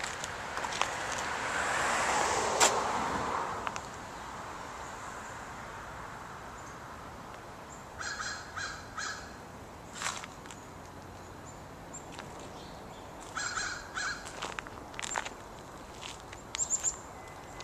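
Crows cawing outdoors in two short runs of three or four calls, about eight and thirteen seconds in. Before them comes a swell of rushing noise with one sharp click in the first few seconds.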